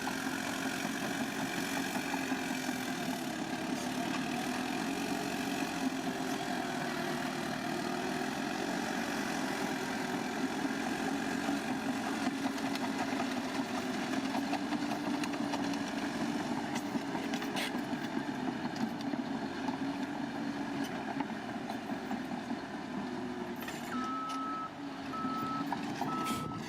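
Bulldozer's diesel engine running steadily as it works, its pitch wavering slightly. Near the end a reversing alarm starts beeping, about two beeps a second, as the machine backs up.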